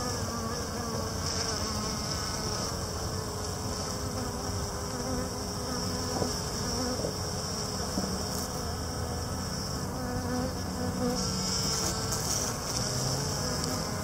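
Honey bees buzzing as they fly close by: a steady hum whose pitch drifts up and down as the bees come and go.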